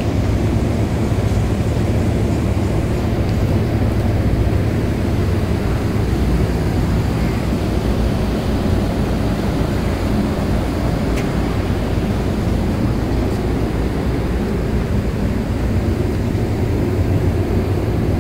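Steady low rumbling noise, even in level throughout, with nothing standing out from it.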